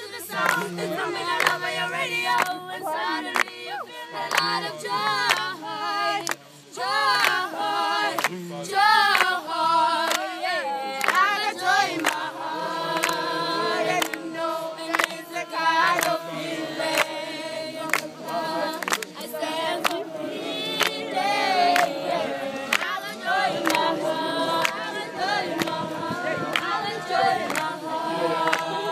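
A group of young voices singing together unaccompanied, with hand claps keeping a steady beat.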